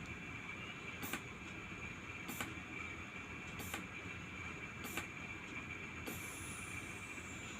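Mindray patient monitor's NIBP cuff deflating step by step, its deflation valve clicking about every 1.3 seconds over a steady high-pitched hum. About six seconds in, a hiss starts with a high whistle that falls in pitch as the air is let out at the end of the measurement.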